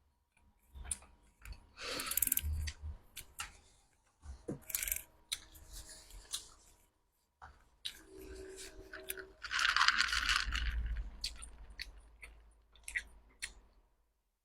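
A person chewing and crunching food in irregular bites with small mouth clicks. The crunching is louder about two seconds in and again for a second or so around ten seconds in.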